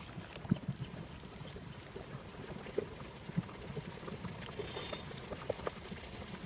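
Faint, irregular small splashes and pops of shallow water.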